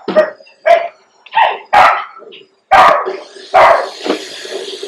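A dog barking repeatedly, short loud barks coming in quick succession with brief gaps between them.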